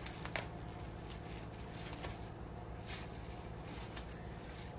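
Thin plastic bread bag crinkling in short, scattered rustles as a cat bites and tugs at the bread inside it, with the sharpest crackle about a third of a second in. A steady low hum runs underneath.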